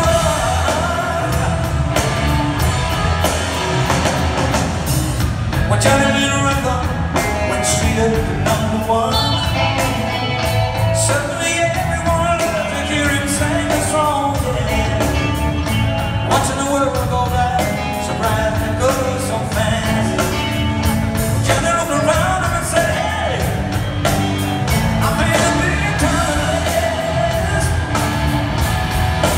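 Rock song with a lead vocal singing over the band.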